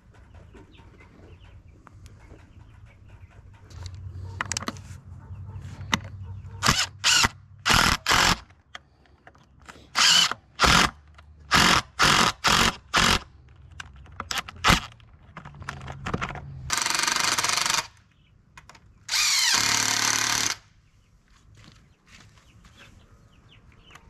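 Power drill running in a string of short bursts, then two longer runs of over a second each, as when driving screws during a wood build.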